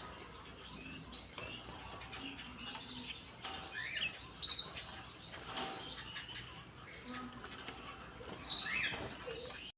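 Small cage birds chirping with short, scattered calls, along with fluttering and scratching. The sound cuts off suddenly near the end.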